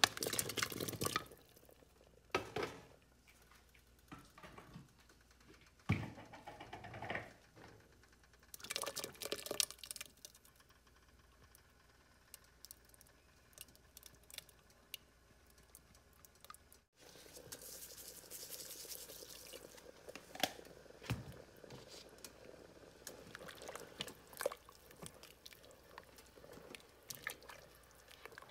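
Potato chunks tipped from a bowl into a pot of lamb broth, splashing in four or five bursts over the first ten seconds. Later the broth bubbles at a boil, a steady low hiss with many small pops.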